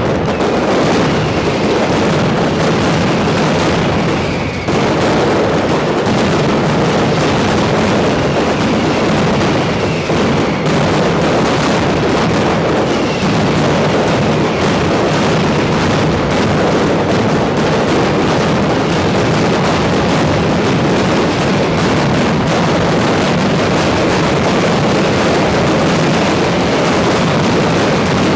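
Mascletà firecracker barrage: a dense, unbroken rattle of rapid firecracker explosions, very loud throughout.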